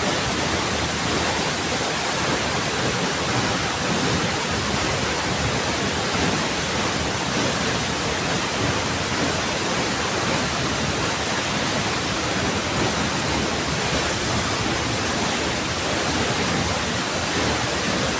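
High waterfall pouring down: a loud, steady rush of falling water.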